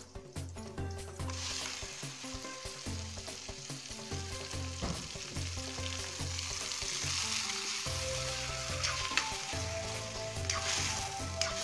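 Pen shell meat frying in hot oil with onion and garlic in a metal wok, a steady sizzle that swells about a second in and stays loud, with the clicks and scrapes of a metal spatula stirring.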